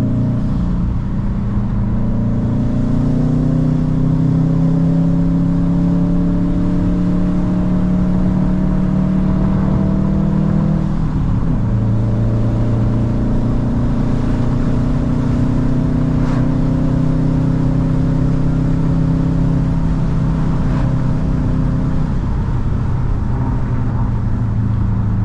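Car engine pulling under load, its note climbing slowly in pitch. It drops and picks up again about halfway through and once more near the end, as the driver shifts gears.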